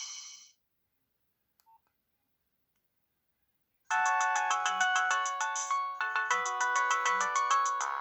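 Nokia 6030 ringtones: one melody dies away in the first half-second, then after about three seconds of silence a new polyphonic ringtone starts almost four seconds in. It plays quick repeated notes over a steady low beat.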